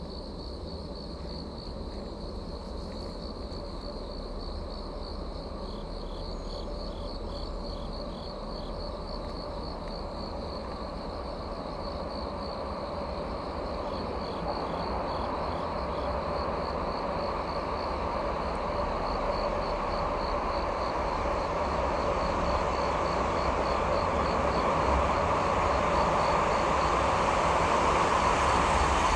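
Freight train with an electric locomotive approaching through a tunnel: a rumble that grows steadily louder, loudest at the end. An insect chirps in a steady high pulse.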